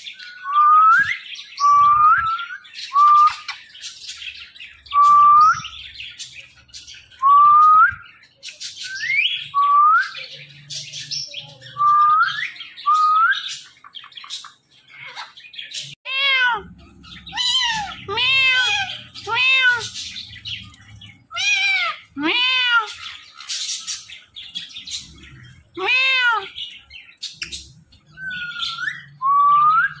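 Indian ringneck parakeets calling: a string of short upward-sliding whistles about one a second, then from about halfway a run of harsh arched squawks, several a second.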